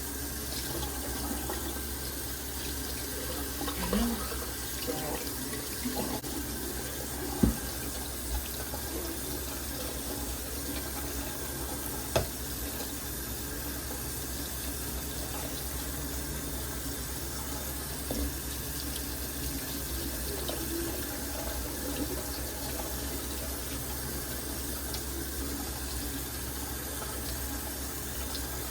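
Water running steadily from a tap into a sink, with a few light knocks and clinks of dishes.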